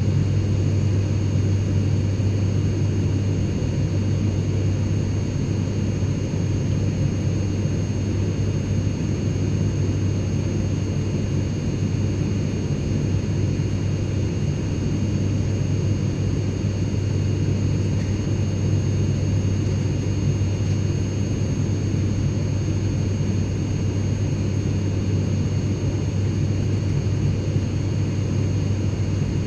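Steady drone of an airliner cabin in flight: low engine and airflow rumble with faint steady high whines over it, unchanging throughout.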